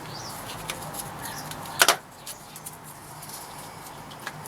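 A single sharp click about two seconds in, as a small cap is pressed onto the head of a brake caliper guide bolt, with a few faint ticks near the end.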